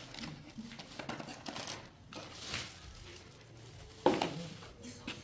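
Scattered rustling and handling noises, with a sudden thump about four seconds in.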